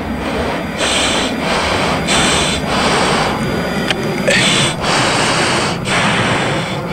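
Rapid, forceful breathing in the F-16 pilot's oxygen mask, picked up on the cockpit intercom: a quick, regular run of hissing breaths with a pause of about a second midway, over a steady cockpit rumble.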